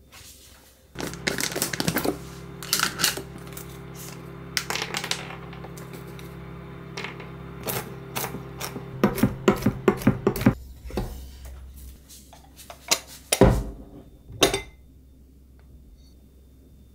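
A kitchen knife chopping mixed nuts on a wooden cutting board, with a quick run of strokes about nine seconds in, over the steady hum of a running microwave oven that stops about ten seconds in. Then a glass lid knocks against a glass bowl twice.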